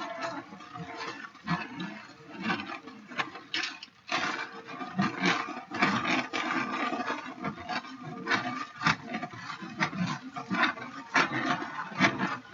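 Hand-powered ice cream maker being worked without a pause: a continuous, uneven scraping and rattling of quick irregular strokes.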